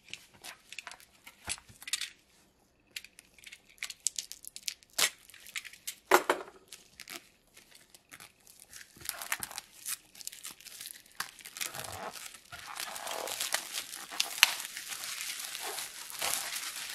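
Plastic shrink-wrap on a cardboard box being slit with a utility knife, then torn and peeled off and crumpled. Scattered sharp scratches and clicks in the first half give way to dense, continuous crinkling from about halfway in.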